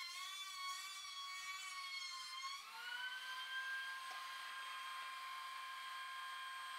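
DeWalt DW735 benchtop thickness planer cutting a board. Its high motor whine sags in pitch under the load of the cut, then rises back to a steady, higher free-running whine about two and a half seconds in as the board clears the cutterhead.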